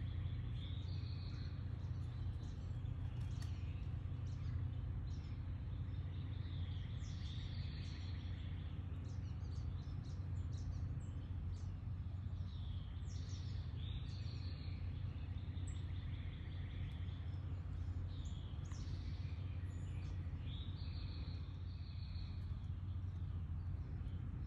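Small birds chirping, with short high calls, some sweeping downward, repeated every few seconds. A steady low rumble of background noise runs underneath.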